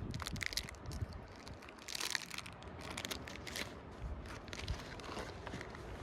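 Plastic wrapper of a snack bar being torn open and crinkled in the hands, in irregular crackles that thin out toward the end.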